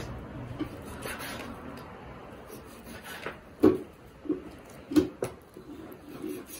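Kitchen knife cutting raw meat into small pieces on a wooden cutting board: soft slicing and rubbing, with a few sharp knocks of the blade hitting the board, the loudest about three and a half and five seconds in.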